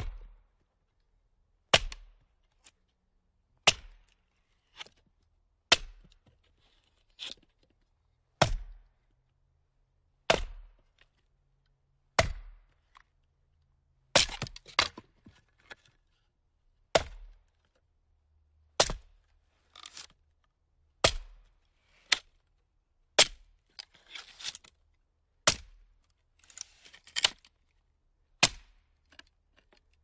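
Axe blows splitting firewood: sharp single chops about every two seconds, a few followed by a short splintering crackle as the wood cracks apart.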